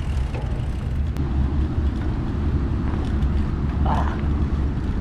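Steady low rumble of wind buffeting the microphone along with the rolling noise of a mountain bike on a dirt and sand trail. A brief voice cuts in about four seconds in.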